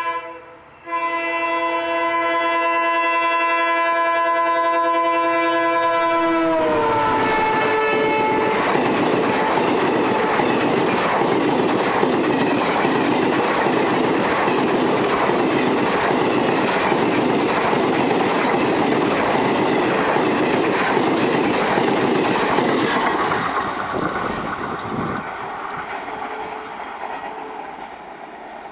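WDP4 diesel locomotive's horn sounding one long steady chord, its pitch dropping sharply about six and a half seconds in as the locomotive passes at speed. Then the train's passenger coaches rush past with rhythmic wheel clatter over the rail joints, fading away in the last few seconds.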